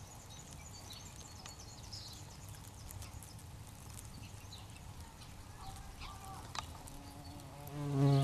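Buff-tailed bumblebees foraging on an artichoke flower head. Near the end one flies close and gives a loud, steady wingbeat buzz lasting about a second.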